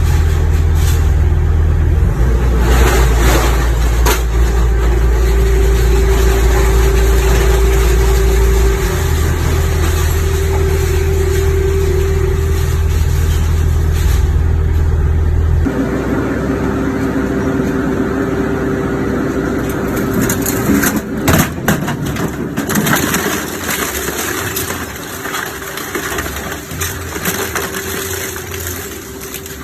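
Twin-shaft shredder running and shredding a water heater: a loud low hum and a steady whine from its drive, with metal being torn and crushed. The low hum drops away about halfway, and a cluster of sharp bangs comes about two-thirds through.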